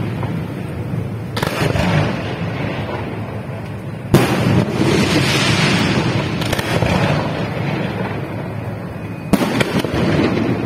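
Fireworks display going off: a continuous crackle and rumble of bursting shells. Sharp bangs cut through it about a second and a half in, the loudest about four seconds in, and a quick cluster of bangs near the end.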